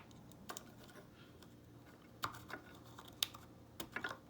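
Small plastic clicks of a bass-knob remote cable being handled and pushed into a splitter's port. Several separate sharp clicks, the loudest about three seconds in, over a faint steady hum.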